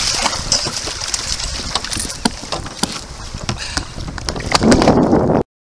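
Water sloshing and splashing around a landing net at the side of a kayak, with scattered sharp knocks and wind on the microphone. A louder rush of noise near the end, then the sound cuts off suddenly.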